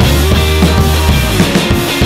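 Rock music with a drum kit beat and a sustained bass line.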